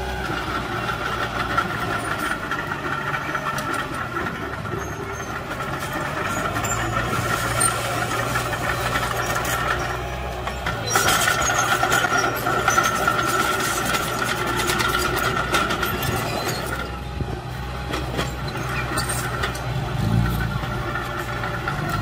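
Small Komatsu crawler bulldozer's diesel engine running steadily under load as it pushes soil, louder for a few seconds about halfway through, with a brief rise in engine pitch near the end.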